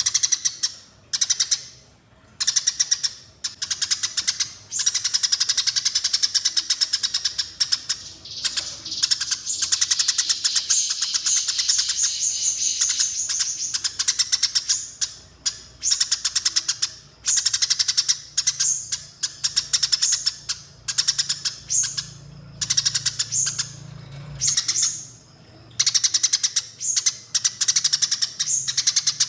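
Eurasian tree sparrows chirping in fast, dense runs, each lasting a few seconds with short breaks between.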